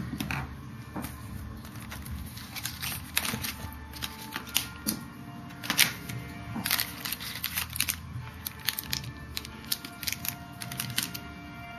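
Hands handling a new MacBook Pro's box and packaging: scattered sharp clicks, taps and short rustles of cardboard and plastic, over faint background music.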